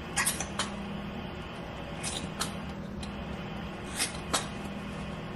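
Scattered short rustles and soft clicks of gloved hands and a towel working over a wet newborn puppy, about seven in all, the sharpest near the start and about four seconds in. A space heater runs underneath as a steady low hum.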